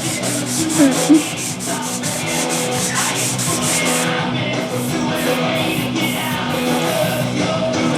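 Hand block-sanding a car body panel with 500-grit sandpaper: quick back-and-forth strokes, about four a second, pausing briefly twice. Punk rock music plays over it.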